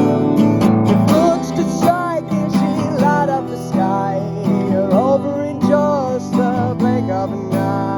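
Music: a strummed acoustic guitar with a wavering melody line above it that slides between notes.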